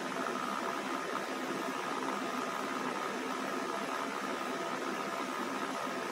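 Drive motor of a DIY HO-scale model railway turntable running steadily as the bridge rotates, a steady hiss with a faint high whine.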